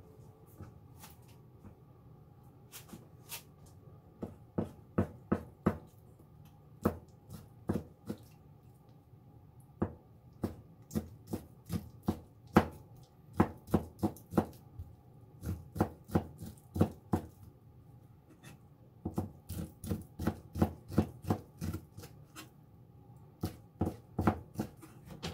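Kitchen knife chopping on a cutting board: sharp taps in short runs of several strokes, with brief pauses between runs, the first run starting about four seconds in.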